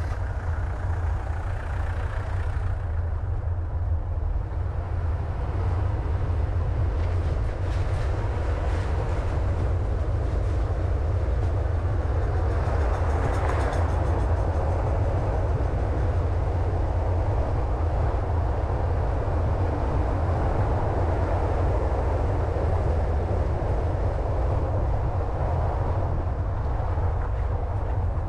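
Car driving on a road: a steady low rumble of engine and tyre noise with a hiss of road and wind, which rises briefly about halfway through.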